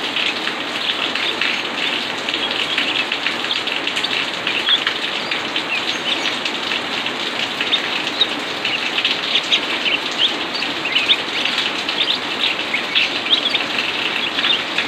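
Steady hiss of falling water, rain therapy over a caged green leafbird (cucak ijo), with many short, high bird chirps breaking through it, more often in the second half.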